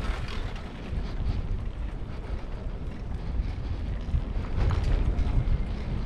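Wind buffeting the microphone of a camera riding on a moving bicycle: a steady low rumble.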